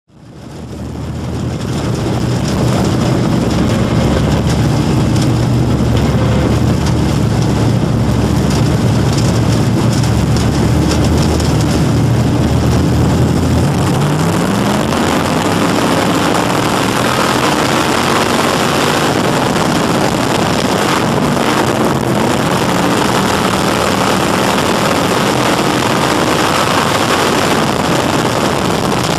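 Dirt-track Crate Sportsman race car's crate V8 engine heard from inside the cockpit, fading in and running at a low, steady pace. About halfway through, the revs climb and the engine runs on at a higher, rising-and-falling note.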